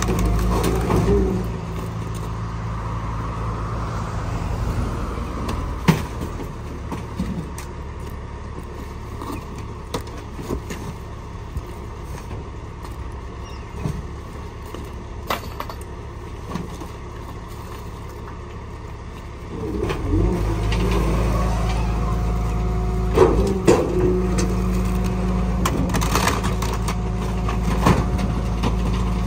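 Rear-loader garbage truck engine running near idle while bulk waste is tossed into the hopper, with scattered knocks and clatters. About twenty seconds in, the engine speeds up and gets much louder as the packer cycles, with cracks and crunches of the load being compacted.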